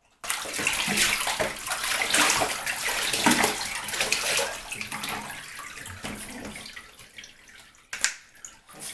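Water poured from a bowl over a French bulldog's back, splashing onto the dog and the bathtub floor. It starts suddenly and trails off over several seconds, followed by a short sharp knock near the end.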